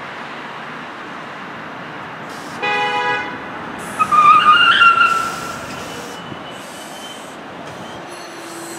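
Train horn at a railway station: a short blast, then a louder, longer blast about a second later, over the steady noise of rail traffic.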